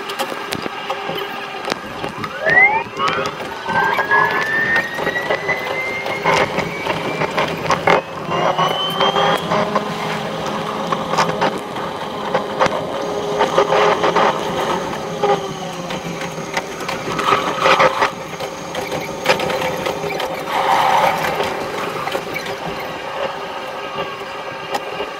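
Keihan electric train's running sound, sped up six times: the traction-motor whine climbs in quick rising glides as the train pulls away, over a rapid clatter of wheels on the rails. Later the whine falls as the train brakes for the next stop.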